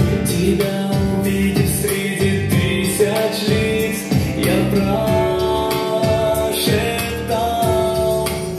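A young man singing a song over a recorded backing track with a steady beat.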